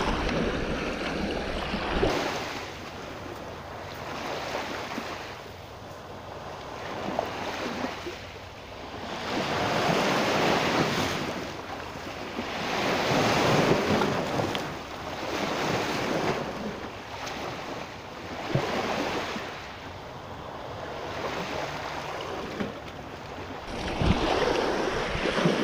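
Small waves breaking and washing up a shell-and-gravel beach, the surf swelling and fading every few seconds, with wind on the microphone.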